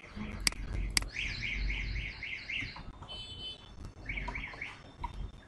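An electronic alarm sounding in the background: a run of identical rising-and-falling chirps, about three a second, then a short steady tone and a few more chirps. Two sharp clicks come just before it, about half a second and a second in.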